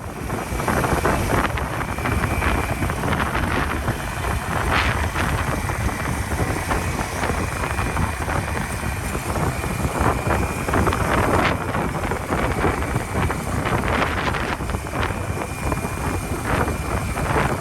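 Wind buffeting the microphone while riding a motorbike, with the engine and road noise running steadily underneath.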